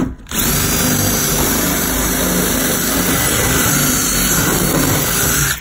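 Electric drill running hard, forced against a stubborn rivet to drill it out. It stops briefly at the start, starts again about a third of a second in, and runs at a steady speed until it cuts off at the end.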